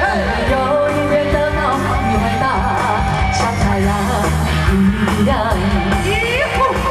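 Pop song played loud through a stage sound system: a woman singing into a microphone over a backing track with a steady bass line.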